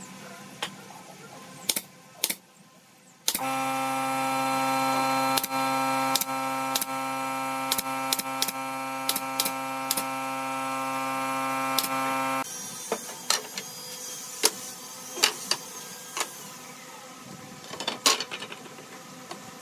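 Pneumatic brad nailer firing a quick run of about ten shots into pine bench boards, over the steady hum of an air compressor motor that starts about three seconds in and cuts off suddenly near the middle. Scattered clacks and knocks of wooden slats being handled follow.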